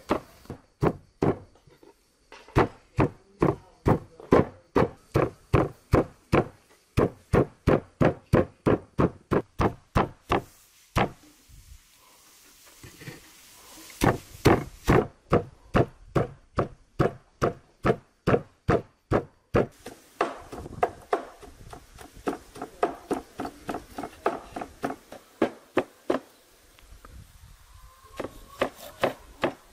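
A meat cleaver chopping lamb shoulder meat and fat into mince on a wooden cutting board: steady strokes about four a second. The chopping stops briefly twice, and the strokes are lighter in the last third.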